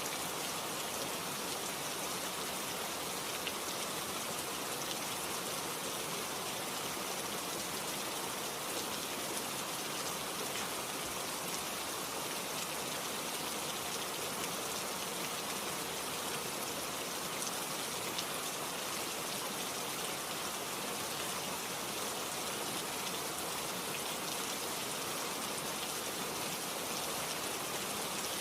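Heavy rain falling steadily, a dense even hiss of drops with faint scattered patters on a surface.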